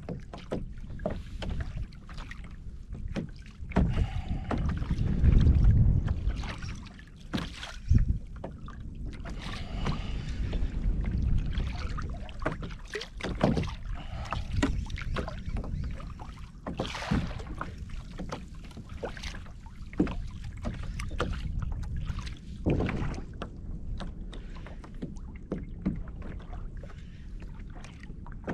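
Water moving around a fishing kayak on a choppy sea, with wind rumbling on the microphone, loudest about four to six seconds in. Short knocks and clicks are scattered throughout.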